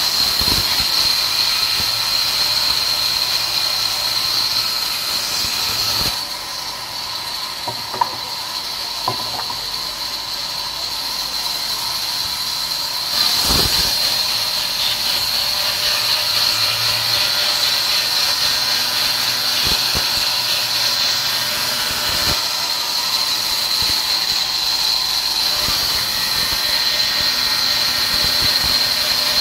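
Large sawmill band saw running and cutting through a log, a steady high-pitched whine over a hiss. It eases off for several seconds about a fifth of the way in and then comes back louder, with a few sharp knocks along the way.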